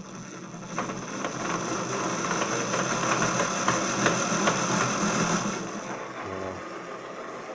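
Electric motor of a 72-volt Razor RSF650 build, driven by a Sabvoton controller, spinning the raised rear wheel through its belt drive. A steady high whine sits over a rising whir that is loudest between about three and five seconds in, then eases off after about five and a half seconds as the throttle is let go.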